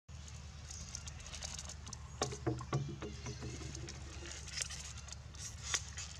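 A plastic water bottle crinkling and clicking in irregular crackles as a long-tailed macaque grips and handles it, heaviest a couple of seconds in, over a steady low rumble.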